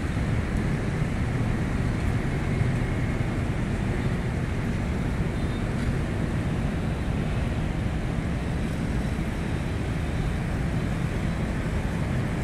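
Steady low outdoor rumble of wind buffeting the microphone over distant traffic noise, with no distinct events.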